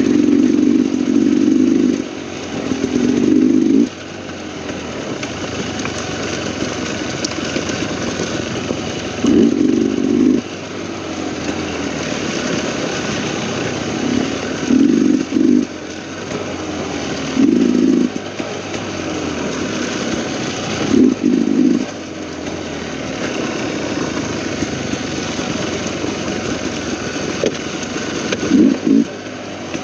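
Dirt bike engine running as the bike rides along a narrow trail, with short, louder bursts of throttle every few seconds as the engine note rises and falls.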